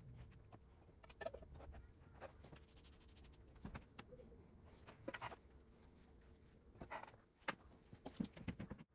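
Near silence: a few faint, short knocks and scrapes of a metal paint tin and plastic roller tray being handled as decking stain is poured out, over a low background hum.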